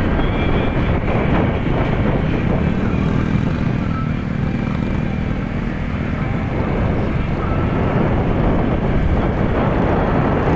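Wind rushing over the microphone of a moving motorcycle, with its engine running steadily underneath.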